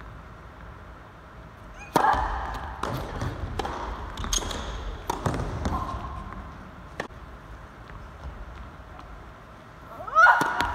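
Tennis rally: a series of sharp pops of racket strikes and ball bounces, the first and loudest about two seconds in, then a lull and another serve struck near the end.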